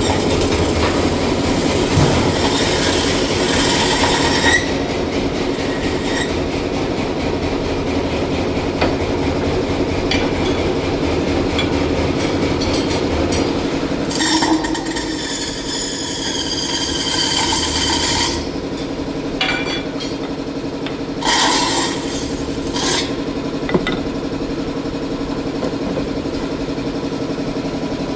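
Metal lathe running with a steady hum while a tool trims an aluminium workpiece. A high, ringing screech of the cut comes in for about four seconds near the middle, with a few shorter bursts after it.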